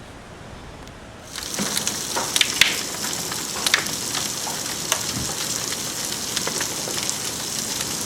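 Rain pouring down, beginning abruptly about a second in: a steady hiss of falling rain with scattered sharper ticks of drops striking nearby surfaces.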